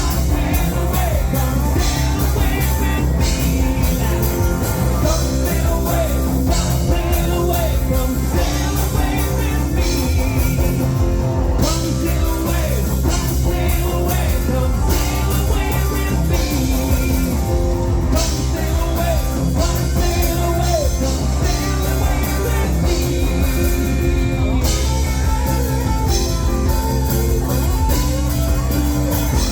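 Live yacht rock band playing at full volume, with singing and guitar over a steady bass and drum backing.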